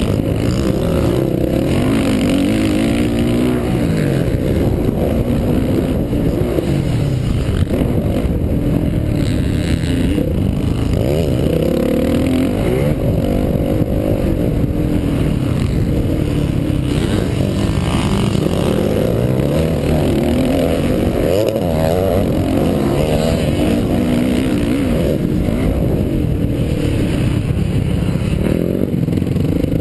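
Dirt bike engine heard from on board while riding a motocross track, its pitch repeatedly rising under throttle and dropping back as the rider accelerates, shifts and shuts off for turns.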